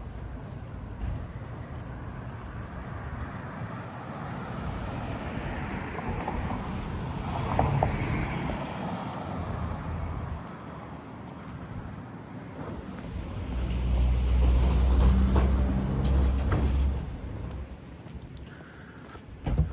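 Road traffic passing close by: one vehicle goes past about eight seconds in, then a large vehicle's engine runs loudly and steadily for about three seconds before cutting off. A single sharp knock comes near the end.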